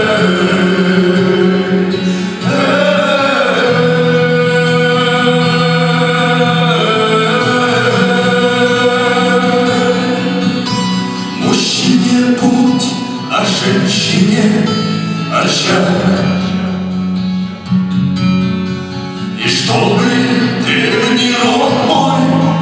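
Male vocal group singing a Buryat pop song in harmony, with long held notes, performed live into microphones.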